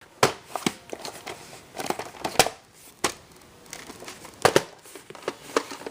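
Handling noise from a VHS tape and its plastic case: a string of sharp clicks and knocks with crinkling between them, the loudest pair of clicks about four and a half seconds in.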